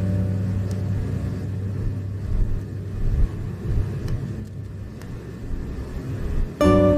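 Low, steady rumble of road and engine noise inside a moving car. A strummed acoustic guitar chord rings out over the first second or so, and the guitar music starts again near the end.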